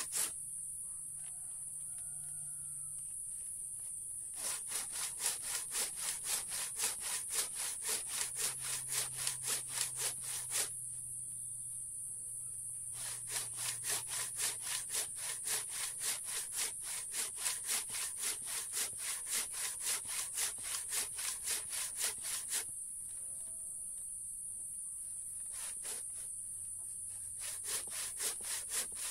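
Hand saw cutting through very hard mangosteen wood in quick back-and-forth strokes, about three a second. The sawing comes in three runs with pauses of a few seconds between them. A steady high-pitched hiss sounds underneath.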